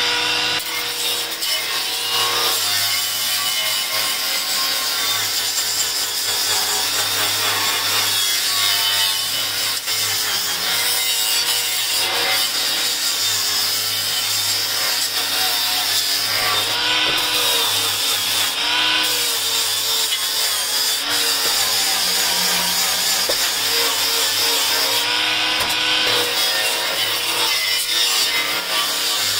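WORKPRO 20V cordless angle grinder running continuously with a flap disc pressed against steel, a steady grinding whine whose motor pitch dips and recovers as it is leaned into the metal.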